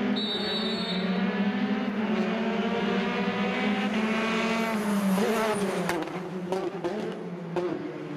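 Rally car engine approaching at speed, its pitch climbing in steps through the gears, then falling as the driver lifts off for a corner, with sharp exhaust pops and crackles while it slows.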